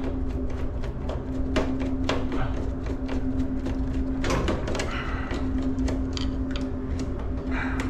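Scattered clicks and knocks of gloved hands handling wires, wire nuts and breakers inside an electrical breaker panel, the loudest about four seconds in, over a steady low machine hum and rumble.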